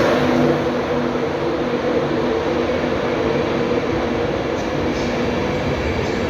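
A train running on the track: a steady rumble with a constant low hum over it.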